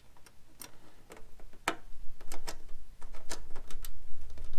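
Irregular light metallic clicks and taps as a small steel bracket and bolt are handled and fitted against an aluminium inner fender panel, coming more often from about a second and a half in.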